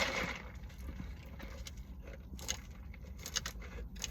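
Faint scattered clicks and crinkles of fast-food sliders and their paper packaging being handled, over a low steady hum.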